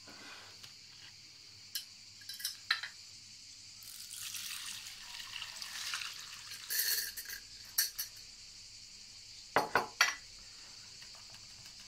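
Alcohol-based hazelnut liqueur poured from a glass jar through a metal mesh sieve into a bowl: a trickling hiss lasting a couple of seconds from about four seconds in, among clinks of glass and metal. Three sharp knocks near the end are the loudest sounds.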